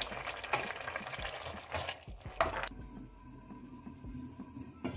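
A spoon stirring a thick simmering vegetable stew in an enamelled cast-iron pot, with a few scrapes and knocks against the pot. About halfway through it goes quieter, and a single knock comes at the end.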